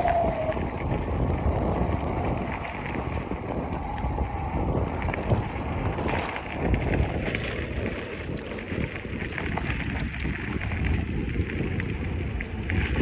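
Wind buffeting the microphone with steady rumble while riding a bicycle, and a brief falling squeak right at the start.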